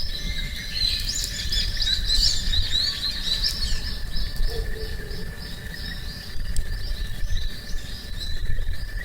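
Small birds chirping in quick runs of high notes, thickest in the first three or four seconds, over a steady low rumble.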